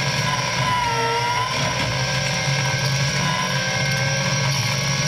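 Caterpillar 297C compact track loader running under load with its front-mounted hydraulic bush hog spinning: a steady low engine drone with a higher hydraulic whine that wavers slightly in pitch.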